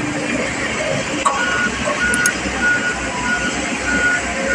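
Single-drum road roller running as it compacts fresh dirt fill, its engine a steady drone. From about a second in, a high warning beep repeats about twice a second.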